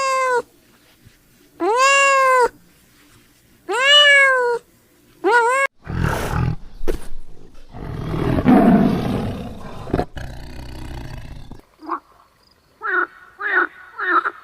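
A cat meowing four times, each meow rising then falling in pitch, followed by a long, rough, deep roar from a big cat, then a string of short, quick calls from another animal near the end.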